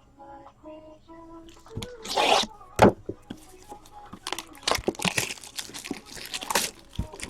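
Packaging of a trading-card tin being ripped open, with a sharp click just before three seconds in. Then wrapper crinkling and rustling as the packs are handled.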